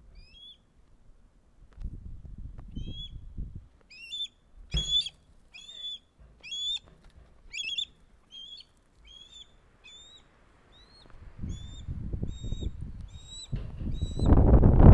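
A bird calling in a steady series of short, high chirps, about one and a half a second, with some low rumbling underneath. Loud wind noise on the microphone swells in just before the end.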